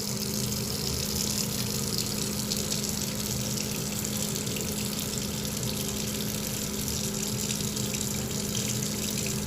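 Steady rushing water noise, like a running tap, at an even level, with a low steady hum underneath.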